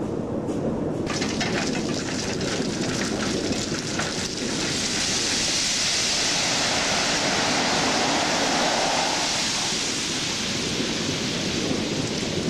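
Crushed-rock ballast pouring out of a tipped side-dump railway car over a steady low rumble. Stones start clattering about a second in, swell into a steady rushing cascade in the middle, and ease off near the end.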